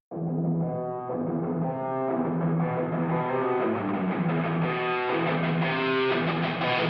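Background music: guitar notes picked in a steady, repeating pattern.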